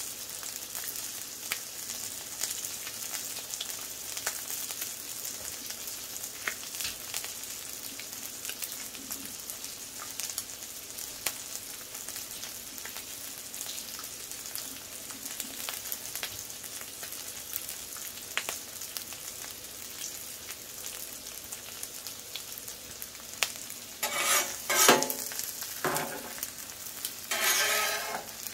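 Bacon sizzling on a Blackstone flat-top griddle: a steady crackle with frequent small pops of spitting fat. Near the end a metal spatula scrapes across the griddle top twice as the onions are pushed around.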